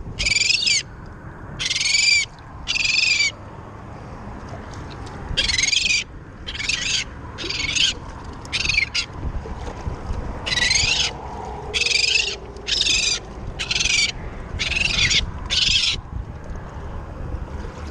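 A seagull tangled in fishing line calling out in distress while it is being freed. It gives loud, high, harsh calls about half a second long, in three runs of five or six calls with short pauses between them.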